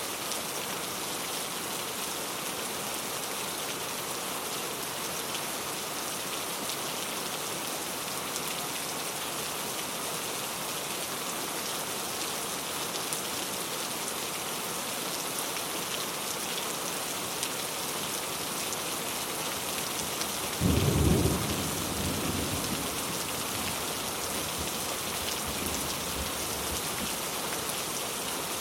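Steady rain falling on a surface, an even hiss throughout. About twenty seconds in a sudden low clap of thunder, the loudest sound, rumbles away over a few seconds.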